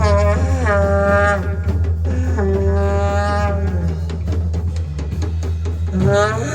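Live rock band playing: a drum kit and steady bass under a lead melody of long held notes that slide up into pitch.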